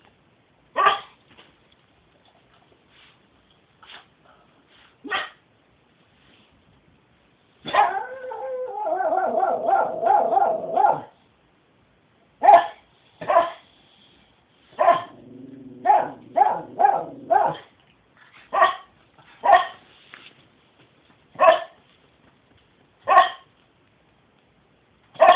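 A pet dog barking in single sharp barks spaced one to a few seconds apart. In the middle comes a few seconds of continuous wavering howl-like vocalizing, and a little later a low rumbling growl runs under a quick run of barks.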